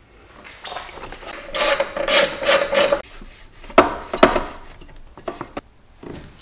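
Rasping and rubbing as a metal side bracket is fitted by hand to an ECU case, followed by two sharp knocks a little past the middle.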